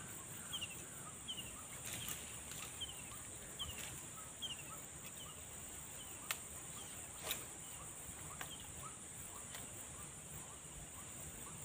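Birds calling: one repeats a short, high, falling note about every three-quarters of a second, over a quicker run of short lower notes and a steady high hiss. Two sharp clicks come about six and seven seconds in.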